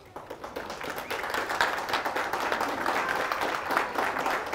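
A small audience clapping, starting abruptly and growing louder over the first second or so, with single hand claps heard within it.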